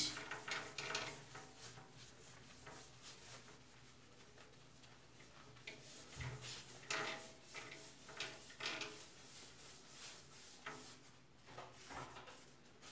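Faint, intermittent rubbing of a hand-held wipe on a glass bathroom mirror, working shaving foam into the glass in short strokes until it disappears.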